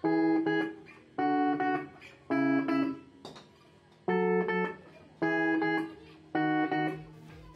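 Vault strat-style electric guitar played through a small Palco practice amplifier, fingerpicked: six separate notes or chords about a second apart, each ringing briefly before fading, with a slightly longer pause in the middle.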